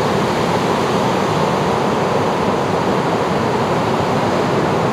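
Steady rushing of ocean surf: an even wash of noise with no single wave breaks or other events standing out.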